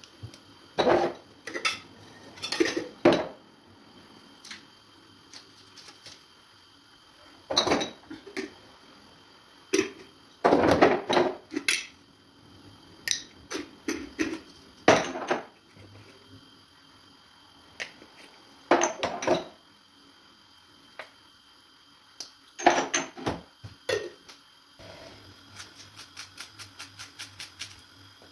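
Kitchen clatter of dishes, pots and utensils being handled: scattered knocks and clinks in irregular clusters, with a quick run of light ticks near the end.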